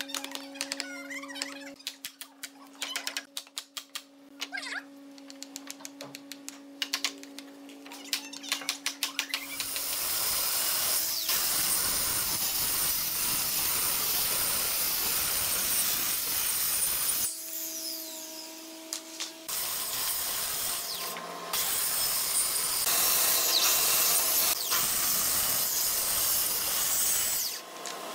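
A run of light knocks and clicks over a steady hum, then, from about ten seconds in, a handheld electric circular saw ripping a long hardwood slab. The cutting runs loud and steady, stops for about two seconds after the middle, and breaks off briefly twice more.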